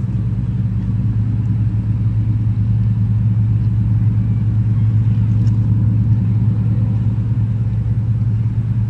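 Engines of a fast passenger ferry running steadily as it passes at speed: a loud, low, even drone.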